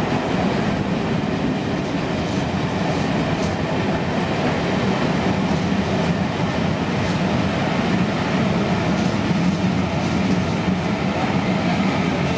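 Passenger coaches rolling past on the rails: a steady rumble of wheels on track, with faint ticks now and then.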